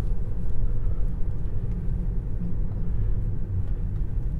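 Steady low road and tyre rumble inside the cabin of a moving Tesla Model 3 electric car.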